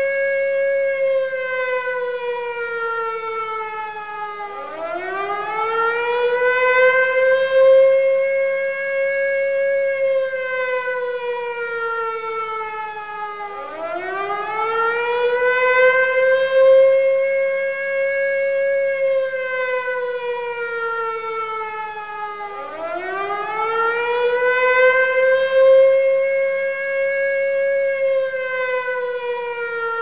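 Air raid siren wailing. Its pitch sweeps up quickly, holds, then slides slowly down, rising three times about nine seconds apart, each new rise starting under the tail of the last fall.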